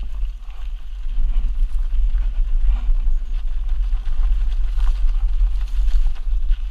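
Mountain bike riding fast down a rocky dirt singletrack, heard from a camera on the rider: a steady deep rumble of wind buffeting the microphone, with tyres crunching over loose gravel and scattered rattling clicks from the bike.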